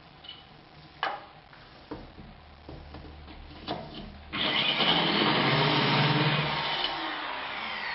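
A few light clicks and knocks, then about four seconds in a power drill starts and runs under load, boring a 68 mm hole-saw hole for a socket box; it eases off slightly near the end.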